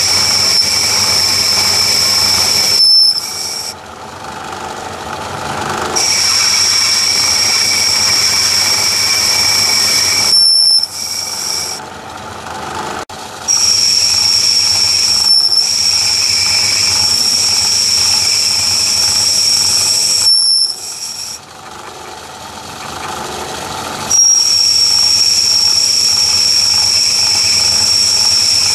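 Lathe boring bar cutting the bore of an aluminium die-holder blank, giving a steady high-pitched squeal on each pass. Three times the squeal stops for about three seconds, leaving the quieter running of the lathe, then starts again with the next cut.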